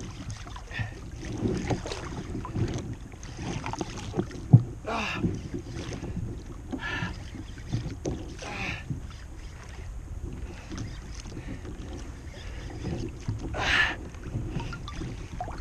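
Water swishing and lapping against a plastic kayak hull as the kayak is towed by a hooked tuna, with wind on the microphone. A few brief louder swishes come along the way, and there is one sharp knock about four and a half seconds in.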